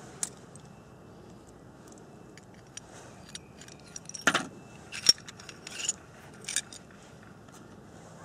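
Metal clicks and clinks from the field-stripped parts of a CZ 27 pistol (slide, barrel and recoil spring) being handled and fitted back together, with a few louder clacks between about four and seven seconds in.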